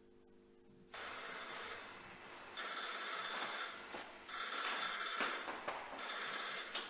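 Bell of an antique wooden wall telephone ringing in four separate bursts, starting about a second in.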